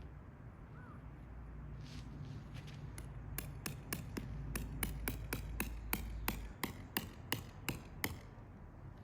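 A hammer driving a tent peg into the ground: a quick run of about twenty sharp strikes, roughly four a second, starting about three seconds in and stopping near the end.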